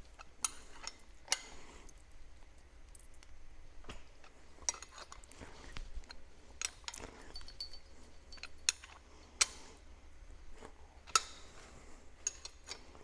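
Hand wrench working bolts on the 4x4 adapter housing of a TH350 automatic transmission: scattered, irregular metallic clicks and clinks of the tool on the bolts and housing.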